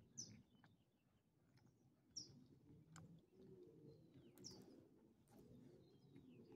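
A bird calling faintly: a short high chirp that slides downward, repeated about every two seconds, four times in all, with a few soft clicks in between.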